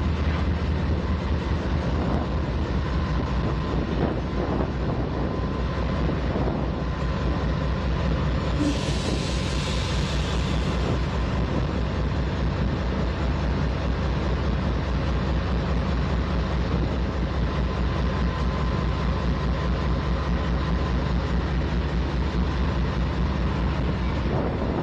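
Idling diesel engine of a GE AC44C6M diesel-electric locomotive, a steady low drone with a faint whine above it. A short hiss of air lasts about two seconds, about nine seconds in.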